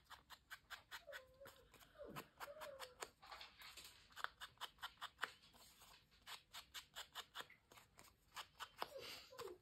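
Foam-tipped ink blending tool dabbed and rubbed along the edges of paper cards: faint, quick scuffs and taps, several a second. A dog whines faintly in the background about a second in, again around two to three seconds in, and near the end.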